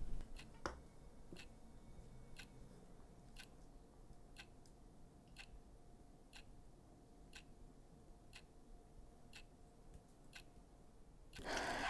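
Clock ticking faintly and evenly, about once a second, in an otherwise hushed room.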